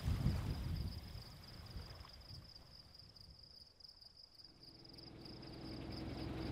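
Wind gusting on the microphone at night, dying away over the first few seconds, under a steady high-pitched whine; a low hum fades in near the end.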